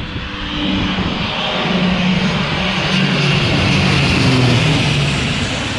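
Twin-engine turboprop military transport plane flying low overhead on its landing approach. Its engine and propeller drone grows louder to a peak about four seconds in and drops in pitch as it passes, then eases a little.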